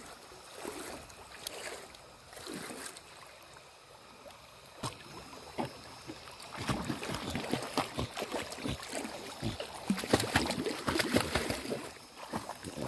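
A beagle paddling through shallow river water, its legs splashing and sloshing in quick irregular strokes that grow busier and louder about halfway through.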